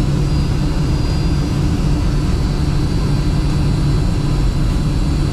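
Boeing 747-400 jet engines and airflow heard from inside the aircraft on descent to landing: a steady roar with a low hum and a faint high whine.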